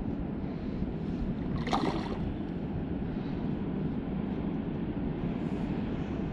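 Steady low rushing of a river flowing toward a weir, mixed with wind on the microphone, with one brief sharper noise about two seconds in.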